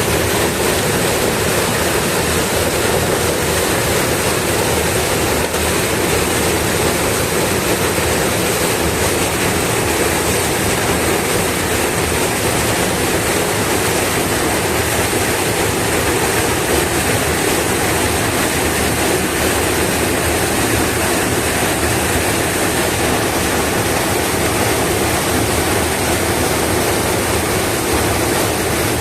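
River water rushing over a waterfall, a loud, steady, unbroken rush of noise.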